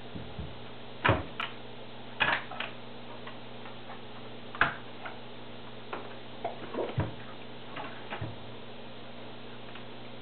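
Irregular knocks and clicks of a plastic canister aquarium filter being handled and set down on a countertop, with a steady low hum underneath.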